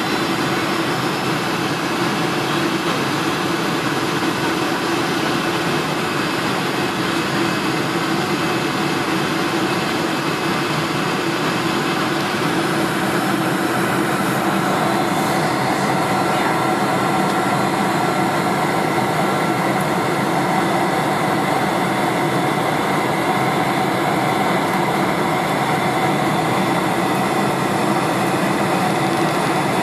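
Steady cabin noise of a four-engine KLM Boeing 747 on approach: the wing-mounted GE turbofans and the rush of air heard through the fuselage as an even roar with faint steady tones, slightly changing in pitch about halfway through.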